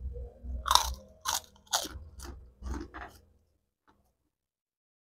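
Close-up crunching of a crisp Indonesian kerupuk cracker being bitten and chewed, a quick run of sharp crunches over about three seconds.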